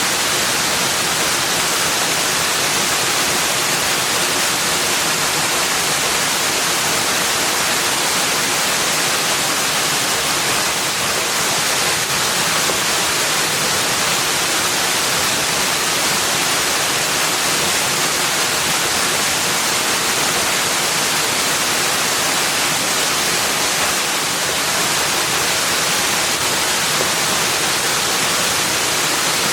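Steady, even rush of flowing water, unchanging and with no distinct splashes or other events.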